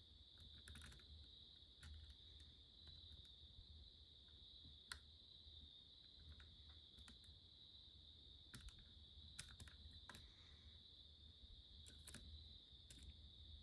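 Faint, scattered clicks of a lock pick working the spool pins of an ABUS 72/40 padlock, over a steady faint high whine.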